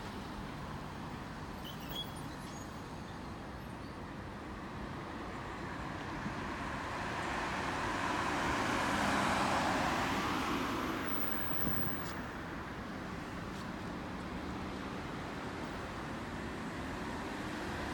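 Steady city street traffic noise, with one vehicle passing close that swells up and fades away in the middle.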